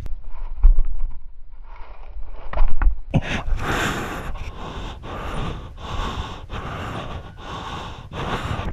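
A man panting hard, about two breaths a second, from the exertion of acrobatic moves. In the first few seconds there is only a low rumble and a few bumps on the camera's microphone; the hard breathing starts about three seconds in.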